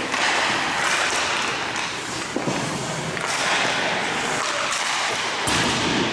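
Ice hockey rink sounds: skate blades scraping the ice, with a few sharp stick-and-puck knocks.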